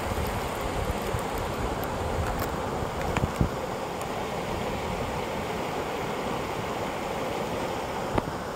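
Wind buffeting the microphone: a steady, rumbling rush of noise. Two short sharp knocks cut through it, one about three seconds in and one near the end.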